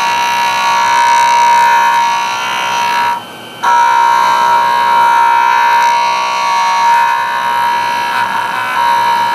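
Enamelled cloisonné piece pressed against a spinning very fine 20-micron diamond disc on a JOOLTOOL, giving a loud, steady, high whine while it is sanded. About three seconds in the piece comes off the disc and the whine drops out for half a second before it resumes.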